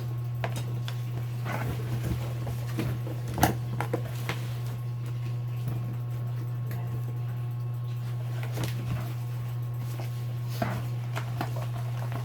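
Scattered light clicks and taps of small motorcycle light parts and packaging being handled, with a sharp click about three and a half seconds in, over a steady low hum.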